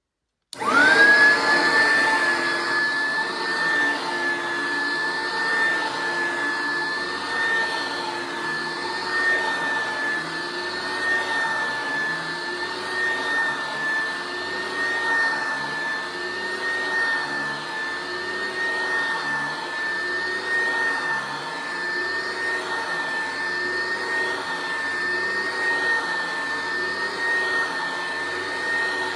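Upright vacuum cleaner switched on about half a second in. Its motor whine climbs quickly to a steady high pitch, then it runs while being pushed back and forth over carpet, with a low rumble that swells and eases at a steady rhythm.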